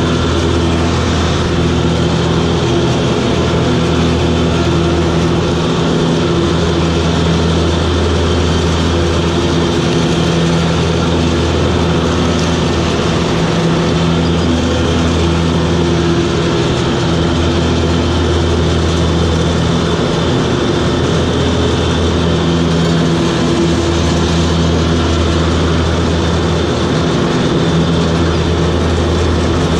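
Toro Groundsmaster 7210 ride-on mower's diesel engine running steadily, heard from the operator's seat, its low hum swelling and easing every few seconds.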